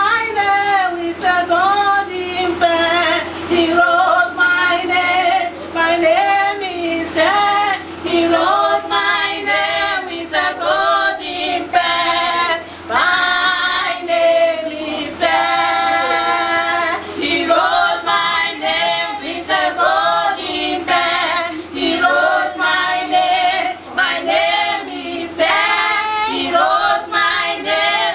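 A woman and two girls singing a gospel song together into a microphone, their voices held on long notes.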